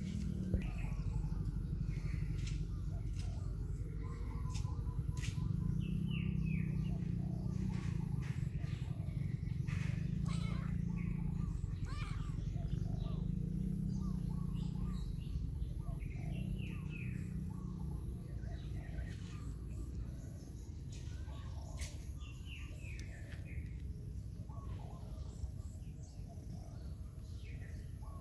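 Outdoor ambience: small birds chirping in short calls every few seconds over a steady low rumble.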